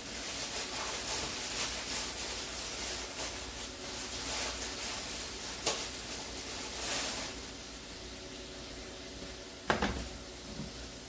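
Butter sizzling in a skillet as slices of bread toast, with a light click partway through and a sharper knock against the pan near the end.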